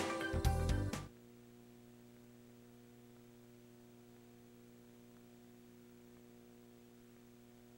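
Music with a steady beat cuts off abruptly about a second in, leaving a faint, steady electrical hum.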